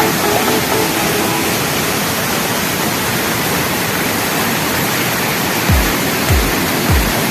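Steady rush of a waterfall over background music. About six seconds in, a deep bass beat whose notes fall in pitch comes in, roughly every half second.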